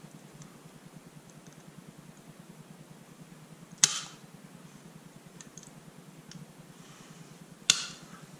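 Tin snips cutting the corners off a small metal convertible-top boot clip: two sharp snips, about four seconds apart.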